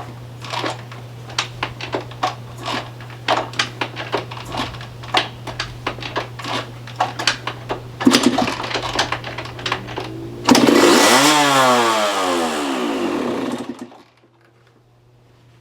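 Yamaha YZ125 two-stroke dirt bike engine sputtering with rapid, irregular pops for several seconds. It then catches and runs loudly for about three seconds, its pitch swinging up and down, and cuts out suddenly near the end. This is a first start after a carburetor cleaning, with no air filter fitted.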